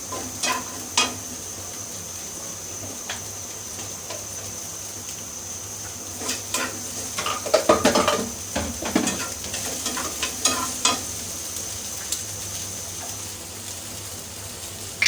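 Beaten egg and chopped onion frying in hot oil in a pan: a steady sizzle, with a spatula scraping and tapping against the pan now and then, busiest around the middle.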